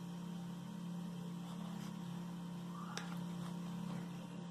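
Steady low electrical hum with a faint tap about three seconds in.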